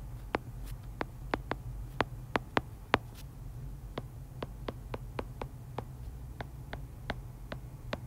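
Stylus tip tapping on a tablet's glass screen during handwriting: irregular sharp clicks, about two or three a second, over a low steady hum.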